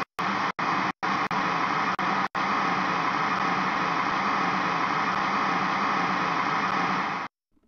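Television static hiss, a steady rushing noise that cuts out for an instant several times in the first couple of seconds, then stops suddenly near the end.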